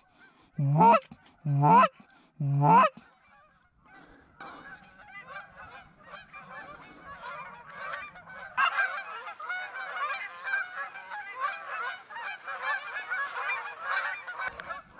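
A flock of Canada geese honking overhead, many overlapping calls that swell and grow much denser about nine seconds in. Three loud, separate calls come near the start, before the flock grows loud.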